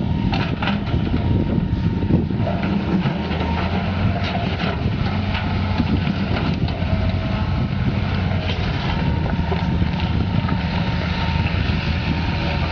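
John Deere 200LC excavator's diesel engine running steadily under load while it digs, with a faint steady whine and scattered short knocks as the bucket works through rock and dirt.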